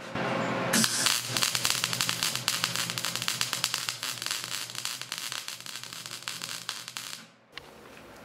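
MIG/MAG welding arc with 1.0 mm wire on steel plate, crackling and popping irregularly. It starts about a second in and cuts off abruptly near the end. The machine is set with too much wire for the low voltage selected, a typical low-current, low-voltage setting.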